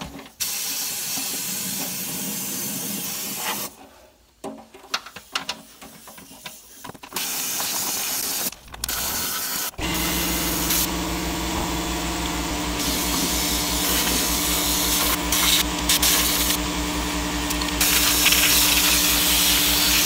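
Rust-proofing spray gun hissing as it sprays Fluid Film under a vehicle, in two bursts over the first few seconds and then steadily. About halfway through a motor starts and keeps running with a steady pulsing hum beneath the spray.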